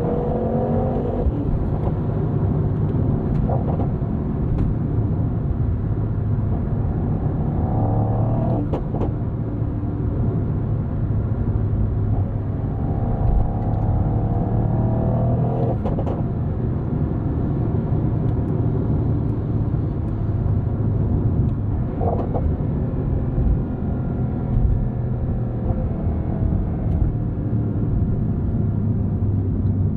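Mercedes-AMG GT 63's twin-turbo V8 engine running under a steady low rumble, with several stretches of rising pitch as it accelerates, each cut off by a sharp break at an upshift.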